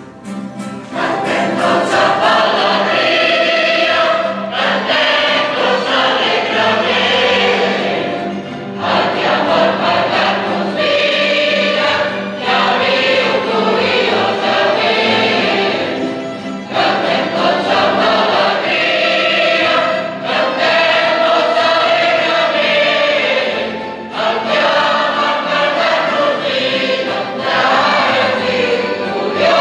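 Mixed choir of men and women singing in phrases of about four seconds, with short breaks between them; the singing comes in about a second in.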